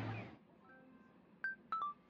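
Street noise fades out in the first half second, then soft background music starts about a second and a half in with a few separate bell-like notes.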